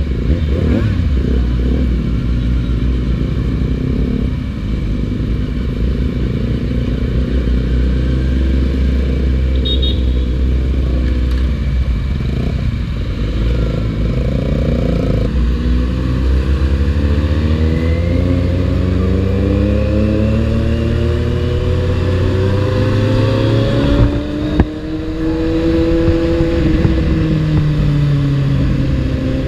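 Motorcycle engine heard from the rider's seat, running with a low rumble through city traffic. From about halfway through, its pitch climbs steadily as the bike accelerates, a short knock comes near the end, and then the pitch drops as it slows.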